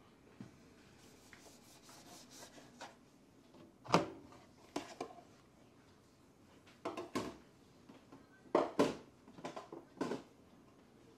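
Household objects being handled and set down: a series of light knocks and clunks, the loudest about four seconds in and a cluster near the end.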